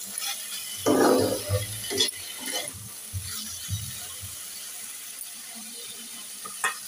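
A metal spatula scraping and clattering against a wok as flat beans and diced potato are stirred and tossed. The loudest scrape comes about a second in, followed by a few sharp clinks, with one more near the end.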